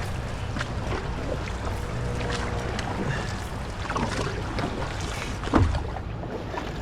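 Canoe being paddled, with paddles dipping and splashing in small scattered clicks, and one sharp knock about five and a half seconds in. Wind rumbles steadily on the microphone.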